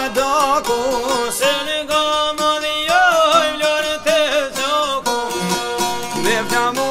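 Albanian folk music on plucked long-necked lutes (çifteli and sharki) playing an ornamented melody with bending, wavering notes.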